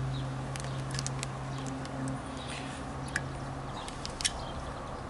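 Small irregular clicks and scrapes of a steel circlip being squeezed by hand into the bore of a classic Mini clutch master cylinder, over a steady low hum that fades after about two seconds.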